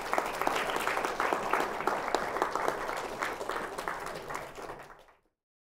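Audience applauding: a dense patter of many hands clapping that thins toward the end and cuts off suddenly about five seconds in.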